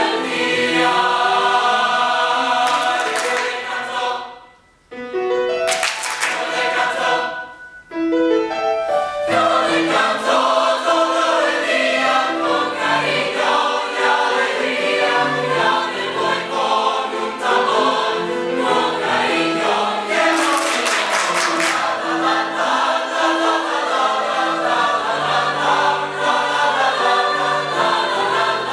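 Mixed choir singing a Spanish-language song, many voices together. The singing breaks off briefly about five seconds in. Short bursts of sharp clicks cut through around six seconds in and again around twenty to twenty-two seconds in.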